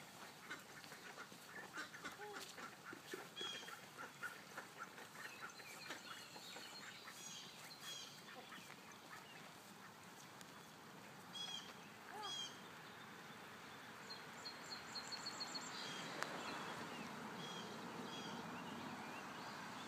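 Domestic ducks quacking softly and repeatedly as they follow along, hungry for feed.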